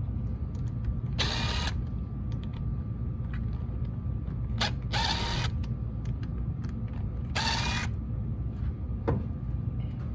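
Yellow DeWalt cordless driver whirring in three short runs of about half a second each, backing the bolts out of a GM Gen V L86 cam phaser.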